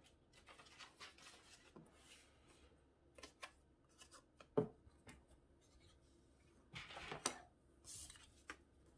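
Faint paper handling on a paper trimmer: soft rustles and light taps of cardstock, a sharp click about halfway through, and a short scraping stretch near the end as the cutting blade is drawn along the paper.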